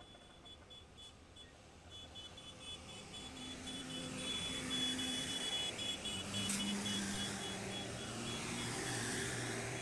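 Rail maintenance-of-way machines travelling along the track: their diesel engines running and growing louder as they approach, with a rapid high-pitched beeping from a travel alarm.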